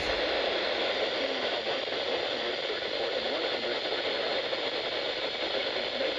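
Steady hiss of radio static from a weather radio receiver, drowning out the warning broadcast mid-message.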